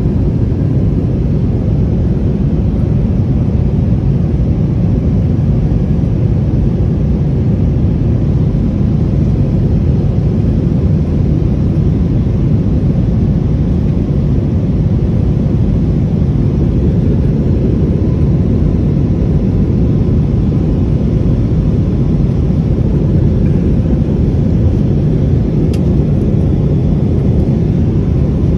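Steady jet engine and airflow noise heard from inside an airliner cabin in flight: an even, constant low rumble with a faint steady hum above it.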